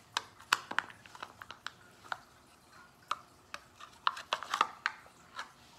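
A plastic tub of frosting being opened and handled: irregular sharp clicks and crackles of the lid and rim, busiest about four seconds in.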